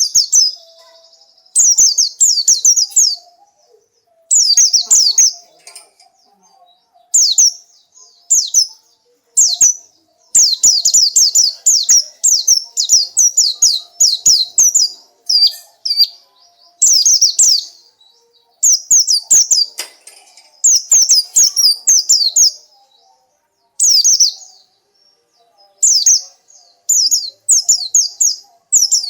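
White-eye (pleci) singing: repeated bursts of rapid, high-pitched twittering, each a second or two long, with short pauses between.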